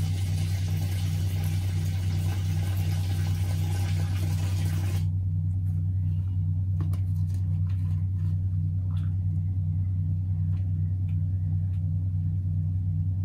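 An engine running steadily, a low hum with a throb about three times a second. A hiss over it cuts off suddenly about five seconds in.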